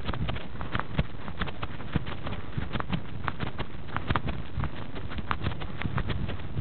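Running footsteps crunching on snow, a quick uneven patter of about three footfalls a second, over a low rumble of wind and handling noise on the handheld camera's microphone.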